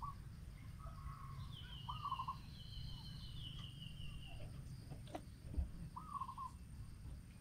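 Forest birds calling: a short, rapidly stuttering call repeated three times, with a longer run of high falling notes in between, over a faint low rumble. A single soft knock comes near the end.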